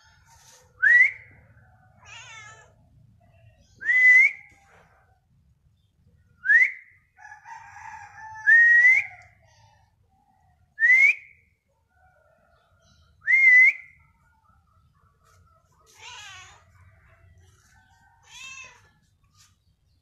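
Six loud short whistled notes, each sliding up and then held for a moment, about every two and a half seconds, with fainter animal calls between them.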